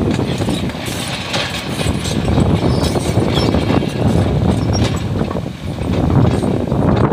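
Kobelco hydraulic excavator working, its diesel engine running under load as the boom swings and the bucket dumps and digs soil and stones, with irregular scraping and clatter of the material.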